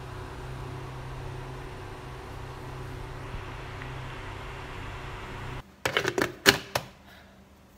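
A steady low hum, then a quick cluster of sharp plastic clicks and knocks near the end as the lid is pressed onto a food processor's plastic chopper bowl.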